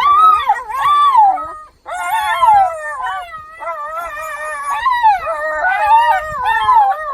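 A dog howling in long calls that waver up and down in pitch. There is a brief break a little under two seconds in, then the howling starts again and carries on.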